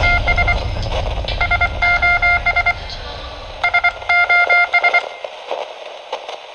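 Electronic beeping in groups of short and long tones at one steady pitch, like a Morse code radio signal, over a low rumble that cuts off about five seconds in.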